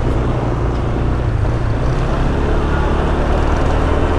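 Yamaha NMAX 155 scooter's single-cylinder engine running steadily while riding, with a low hum under a steady rush of wind and road noise.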